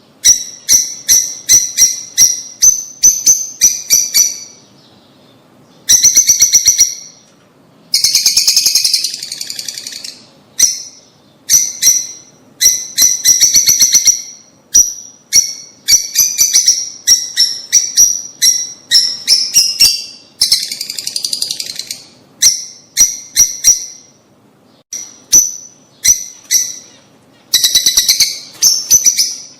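Lovebirds calling: rapid runs of sharp, high-pitched chirps, broken now and then by short pauses.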